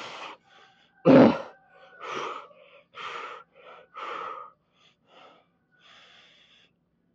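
A man breathing hard from lifting exertion: heavy gasping breaths about once a second, the loudest about a second in, fading toward the end.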